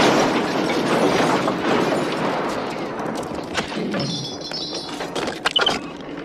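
A loud crash with a long run of clattering, rumbling debris that slowly dies away over several seconds.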